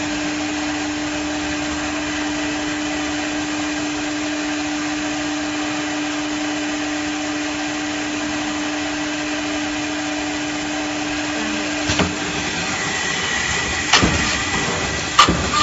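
CNC router running with a steady hum and one constant tone. Sharp knocks come three times in the last few seconds.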